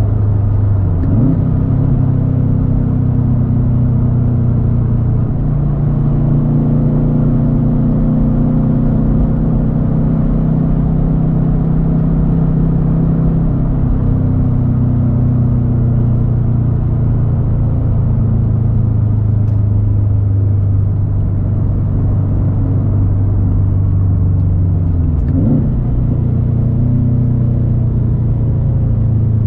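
2013 Subaru WRX STI's turbocharged 2.5-litre flat-four running through a Tomei Expreme Ti titanium turbo-back exhaust under way, holding steady revs for long stretches with its tone shifting a few times as the revs change. Two brief quick sweeps in pitch come about a second in and near the end.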